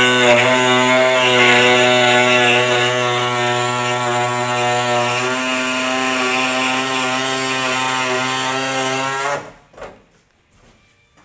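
Handheld corded power tool running steadily at full speed with a constant whine against the car's frame, cutting off suddenly about nine and a half seconds in; a few light knocks follow.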